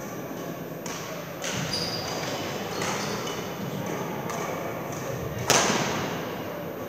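Badminton rackets striking a shuttlecock during a rally: a series of sharp hits, the loudest about five and a half seconds in, echoing in a large sports hall.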